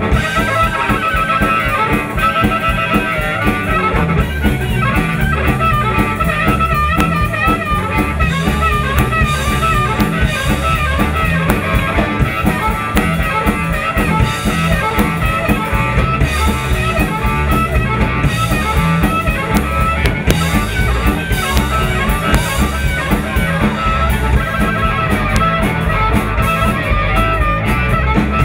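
Live blues band playing an instrumental break: a harmonica solo of wavering, bending notes over a drum kit, electric guitar and bass guitar keeping a steady beat.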